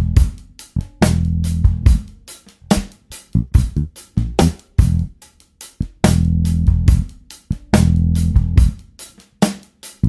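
Background music: a drum-kit passage of rapid, regular kick, snare and hi-hat hits over low bass notes.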